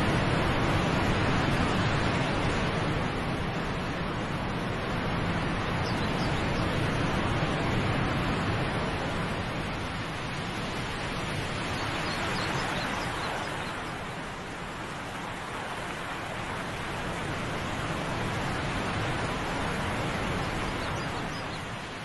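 Waterfalls rushing: a steady wash of cascading water, easing slightly in loudness after the middle.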